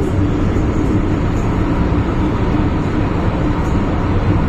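MTR M-Train electric multiple unit running at speed, heard from inside the carriage by the door: a steady rolling rumble with a low hum.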